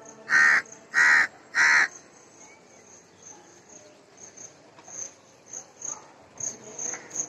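Three loud, harsh bird caws in quick succession in the first two seconds, over steady high-pitched insect chirping. Faint rustles and small knocks follow.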